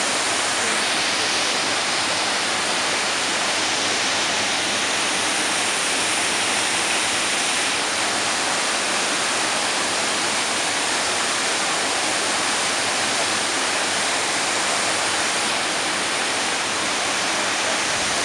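Waterfall: a steady, loud rush of falling water crashing into the pool below.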